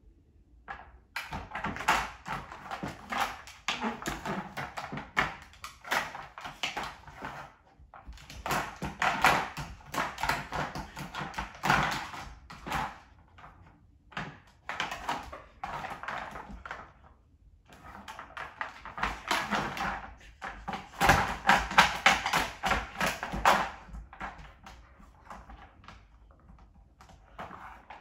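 Hard plastic dog puzzle toys clattering, knocking and scraping on a hardwood floor as a husky puppy paws and shoves them, in spells of rapid clicking with short pauses between.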